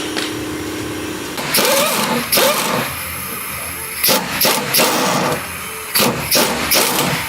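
Impact wrench working the nut of a rear sway bar end link in a series of short bursts of hammering rattle, after a steady hum at the start.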